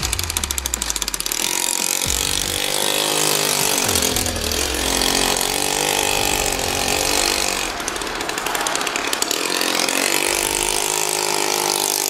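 Suzuki JR50's small two-stroke single-cylinder engine revving up and down as the bike is ridden on a test ride, its pitch rising and falling several times after a low putter at the start. The engine runs on its own without choke, freshly repaired.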